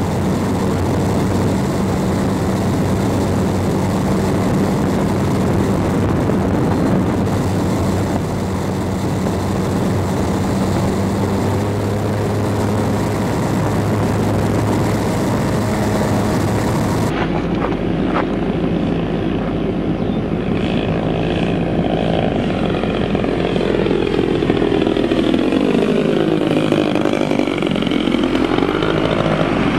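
Engine and propeller of a large radio-controlled plane. From the onboard camera it is a steady drone mixed with wind rush. About halfway through the sound cuts to the ground, where the engine's pitch sweeps down and back up as the plane flies overhead.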